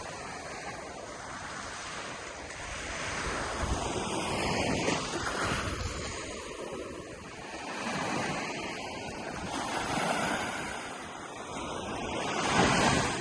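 Gulf of Mexico surf breaking on a sandy beach, the wash swelling and ebbing every few seconds as waves come in, the loudest one near the end.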